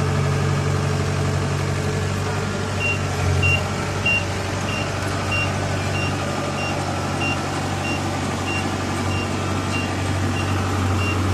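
Tracked rice combine harvester's diesel engine running steadily. From about three seconds in, a high warning beep repeats about three times every two seconds, like a reversing alarm.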